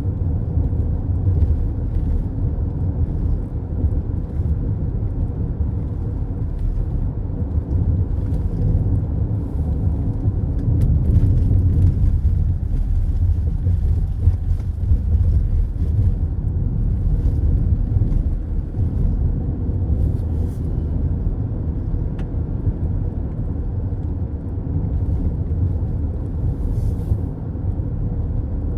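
Steady low rumble of a car driving at road speed, heard from inside the cabin: tyre and engine noise, with a few faint clicks.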